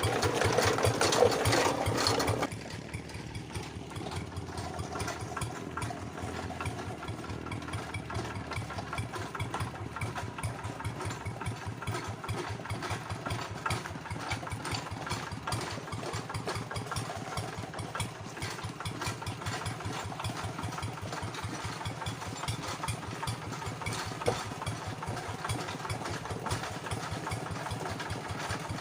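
Two-wheel hand tractor's single-cylinder diesel engine, loud and hard-running for the first two seconds or so, then dropping back to a steady, rapid chugging at low speed.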